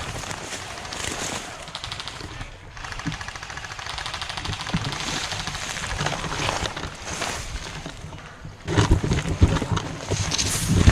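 Airsoft guns firing on full auto: a rapid, rattling stream of shots in several bursts. Louder thumps and rustling come in near the end.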